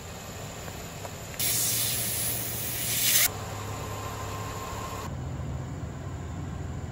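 Air hissing out of an off-road tyre's valve stem as the tyre is aired down for the trail: a loud hiss starts about a second and a half in and cuts off suddenly about two seconds later, followed by a fainter hiss.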